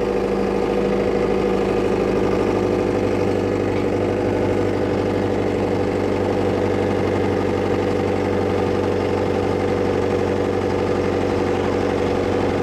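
Boat engine running steadily at an even pace, with a constant low hum.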